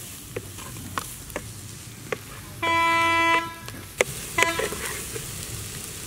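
Winged termites dry-roasting in a clay pot over a wood fire while a wooden ladle stirs them, with scattered sharp crackles. A horn honks once, loud, for under a second, about two and a half seconds in, and gives a shorter toot about a second later.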